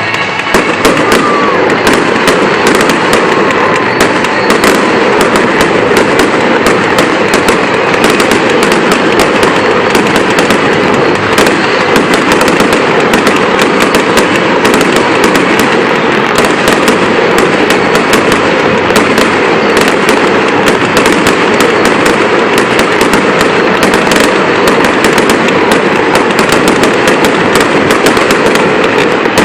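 Fireworks going off in a continuous barrage of rapid crackles and pops, starting up about a second in.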